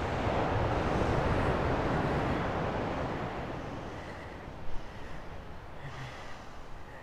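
A gust of wind rushing over the microphone, swelling and then dying away about four seconds in. After it come a few short, pained gasps and breaths from a wounded man.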